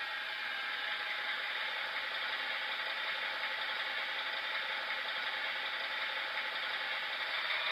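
H0-scale model of an FS D445 diesel locomotive running steadily, its ESU LokSound decoder's diesel engine sound coming thin through a tiny onboard speaker, mixed with the whir and clatter of the model's motor, gears and wheels.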